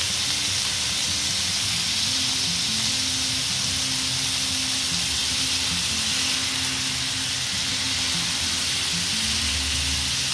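Marinated chicken pieces on skewers sizzling steadily in a little olive oil on a hot non-stick pan.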